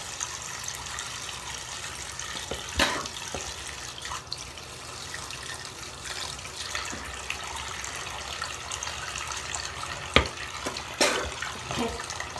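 Bathroom sink tap running steadily into the basin. A few sharp knocks or clacks, one a few seconds in and two more near the end.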